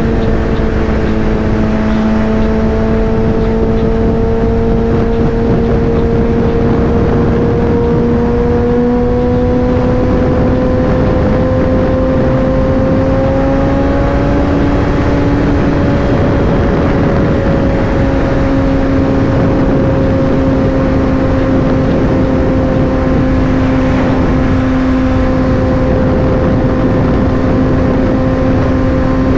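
Suzuki Hayabusa's inline-four engine running at highway cruise under heavy wind rush. The engine note climbs gently over the first half, then holds steady.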